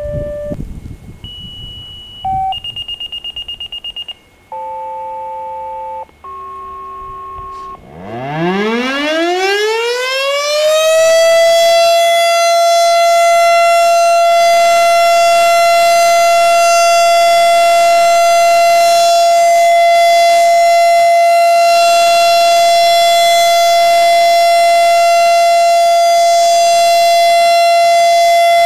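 Paging alert tones for about the first eight seconds: a fast-pulsing high beep, then paired steady tones at two different pitches. Then an STH-10 fire siren winds up in a smooth rising wail and holds one loud steady tone.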